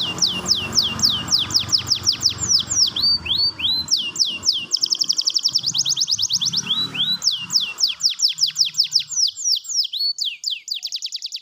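Yellow canary singing a long, continuous song of rapid downward-sweeping notes and fast trills. A low background rumble sits under it and fades out about nine seconds in.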